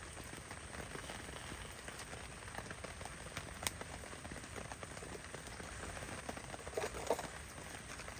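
Heavy rain pattering steadily, with a few sharper clicks.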